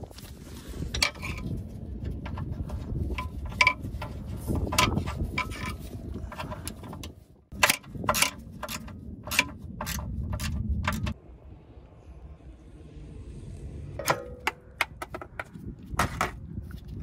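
Ratchet wrench and metal hand tools clicking and clinking while the bolts of a rubber exhaust mount are worked under the car: sharp metallic clicks in irregular clusters over a low rumble that drops away about eleven seconds in.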